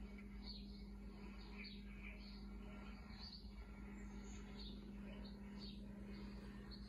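Faint bird chirps, many short high calls coming several times a second, played from a cat-entertainment video, over a steady low hum.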